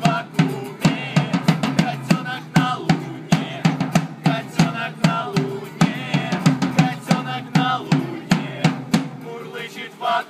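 Instrumental passage of a live acoustic song: two acoustic guitars strummed over a drum struck with sticks in a steady beat of about three hits a second.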